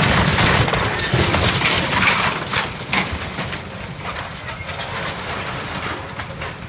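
An excavator tearing into a Quonset hut: the wall cracking and crunching apart and debris crashing down, in a dense run of breaks that is loudest over the first three seconds and then thins out.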